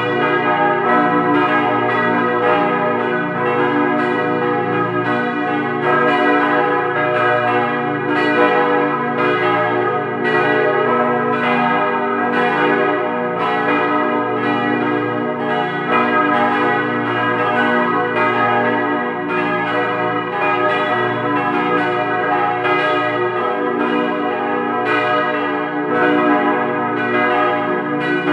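Several large swinging church bells, the ring Ruetschi of Aarau cast in 1927, ringing together in a full peal. Their strikes overlap into a continuous, dense ringing with the deep bourdon sounding beneath.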